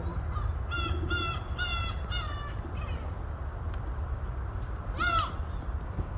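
Seagulls calling: a quick run of about five short calls in the first two and a half seconds, then one louder call about five seconds in, over a steady low rumble.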